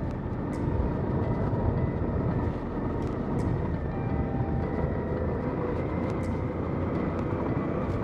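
Suzuki V-Strom 800DE's parallel-twin engine running at a steady, even speed while riding a dirt forest track, mixed with tyre and road noise and a few faint high ticks.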